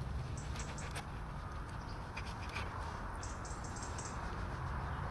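Knife and fork cutting through fried eggy bread on a plate: short scrapes and clicks coming in quick little runs.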